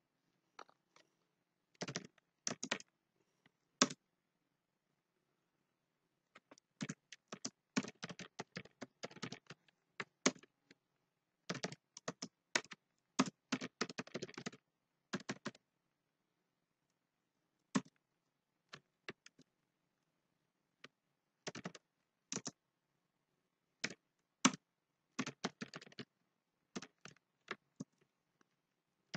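Typing on a computer keyboard: runs of quick keystrokes broken by pauses of a second or two, with a longer gap about four seconds in.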